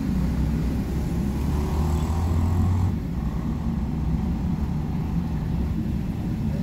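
Low, steady rumble of a car idling, heard from inside its cabin, with other road traffic passing across the front. A louder passing vehicle fades out about three seconds in.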